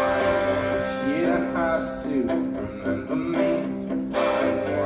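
Guitar strumming chords: an instrumental passage between a solo singer's lines of a song.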